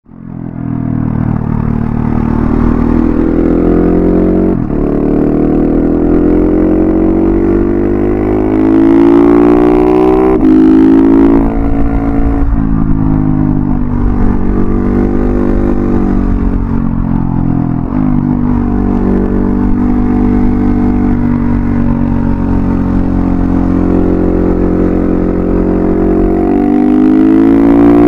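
KTM 690 SMC R's single-cylinder engine running through an Arrow Thunder slip-on exhaust with its dB-killer fitted, heard from the rider's backpack while riding. It pulls through the gears, the pitch climbing and dropping back at each of several upshifts, with stretches of steadier cruising between.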